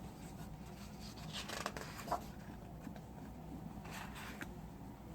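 Faint rustle and rub of paper as a picture book's page is handled and turned, in two short spells.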